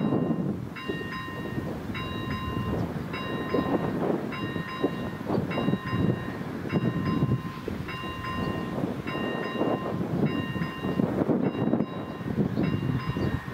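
Electronic level-crossing bell (AŽD ZV-01) ringing its warning, a short pattern of tones repeating a little more than once a second, with a low rumbling noise underneath. The crossing's warning is active as a train approaches.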